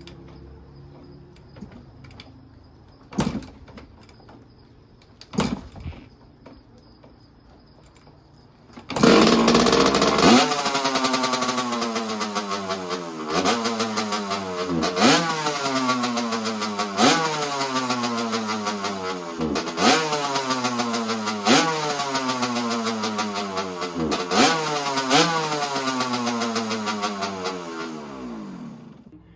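1985 Honda CR125's two-stroke single-cylinder engine on a cold start: two sharp knocks from kicks that don't catch, then it fires about nine seconds in and is revved in repeated throttle blips, the revs falling back after each, until it cuts off near the end.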